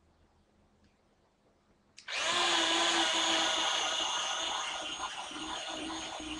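Electric pencil sharpener switching on about two seconds in and running steadily as it grinds a pencil down to a new point, with a steady whine.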